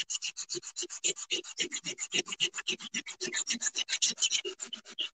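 Black sanding sponge rubbed by hand over a ceramic tile coaster in quick, even back-and-forth strokes, about nine a second, sanding the printed design off the tile.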